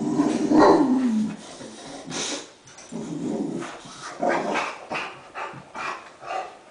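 Boxer dog vocalizing while pestering for play: a drawn-out call that drops in pitch in the first second or so, then a string of shorter calls.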